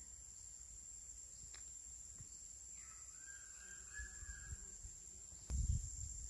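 Steady high-pitched insect drone in a forest, with a faint bird call about halfway through. Near the end there is a short low bump on the microphone.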